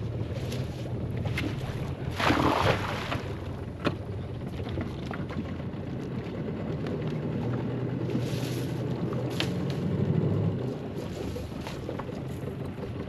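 A cast net thrown from a small boat lands on the water with a brief splashy rush about two seconds in. The net and its hand line are then hauled back aboard, with short watery swishes, over a low steady hum.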